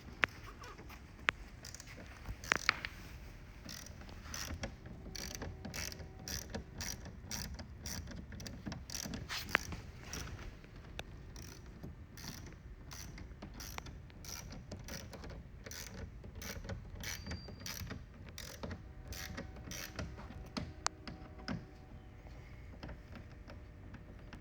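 Hand ratchet wrench clicking in steady runs of about three clicks a second, backing out bolts.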